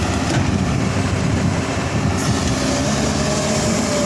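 Kobelco SK380 crawler excavator's diesel engine running under load as the machine tracks down off a lowbed trailer, with the steel tracks clattering. About two seconds in a hiss comes in, and a steady whine joins near the end.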